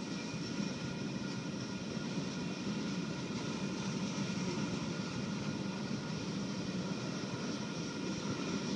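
Union Pacific freight cars (covered hoppers and a tank car) rolling past on the rails: a steady rumble of steel wheels on track, with a faint steady ringing from the wheels.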